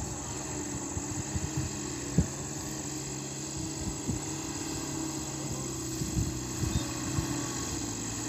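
Diesel engine of a sugarcane-laden truck running at low speed, a steady low hum, with a few knocks, the sharpest about two seconds in.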